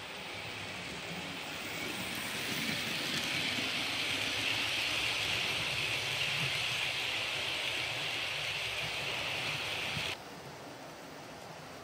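OO gauge model train, a steam locomotive with its coaches, running along the track close by: a steady rolling hiss of wheels on rails and motor that grows louder over the first few seconds as it approaches and passes. About ten seconds in it cuts off suddenly, leaving a quieter steady hiss.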